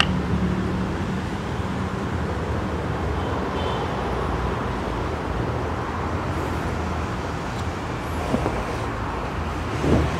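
Steady low rumble of motor traffic, a little louder in the first second.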